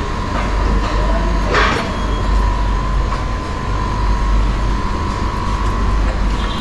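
Tyre-changing machine running with a steady low rumble and a steady whine, with one sharp metallic clank about a second and a half in as the tyre is worked onto the rim.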